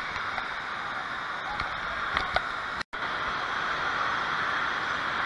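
Steady, echoing din of a large indoor water park hall: rushing water and crowd noise blended into one even wash. A few sharp clicks come about two seconds in, and the sound cuts out for an instant just before the three-second mark.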